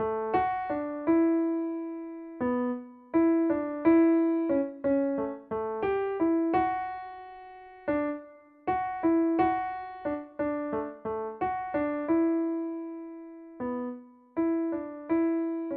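Solo keyboard with a piano sound playing a simple melody, mostly one note at a time, each note struck and left to ring and fade, with brief pauses between phrases.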